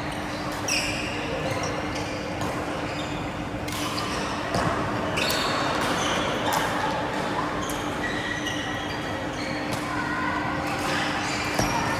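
Badminton doubles rally: sharp racket-on-shuttlecock hits every second or two, with short shoe squeaks on the court floor and murmuring voices behind.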